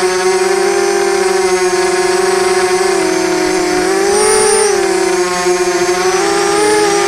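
Quadcopter's electric motors and propellers whining steadily in flight, the pitch rising and falling a little around the middle as the throttle changes.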